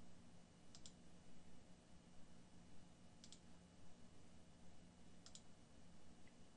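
Computer mouse button clicking three times, about two seconds apart. Each click is a quick double tick of press and release, over a faint steady hum.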